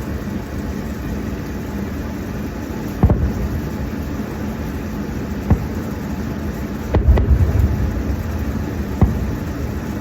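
Distant fireworks going off: sharp bangs about three, five and nine seconds in and a deeper rumbling burst around seven seconds, over a steady low hum.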